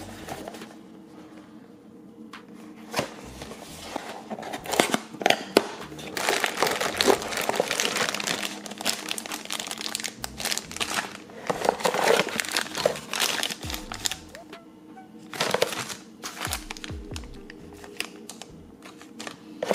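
Clear plastic bags crinkling as they are handled, in several loud stretches, over background music.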